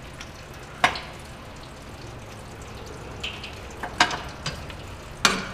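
Sharp metallic clicks and clatter as a steel transmission vacuum-modulator line and its fitting are handled and worked loose: three loud clicks, about a second in, about four seconds in and near the end, with lighter ticks between, over a steady hiss.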